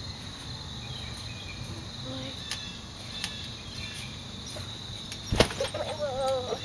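Steady high chirring of crickets. About five seconds in, one loud thump as a child drops onto the trampoline mat, followed by a child's wavering voice.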